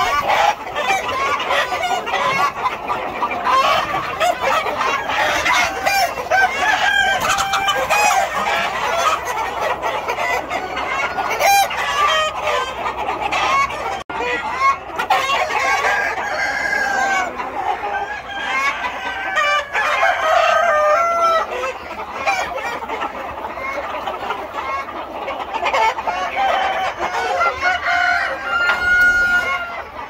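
A large flock of hens and roosters clucking and calling over one another without a break, with roosters crowing.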